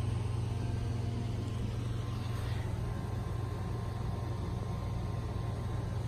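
A steady low hum over faint background noise.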